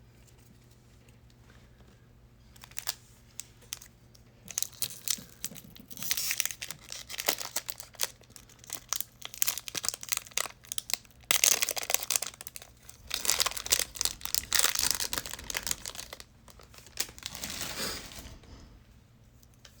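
A trading card pack's wrapper being torn and crinkled open by hand, in several loud rustling, crackling stretches that start about four seconds in and fade out near the end.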